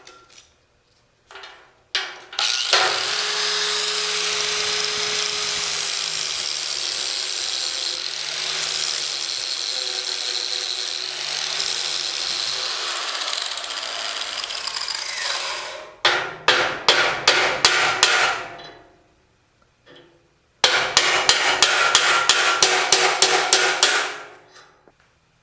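A power tool runs steadily for about thirteen seconds, its motor tone wavering under load. Then come two runs of quick, even strokes, about four or five a second.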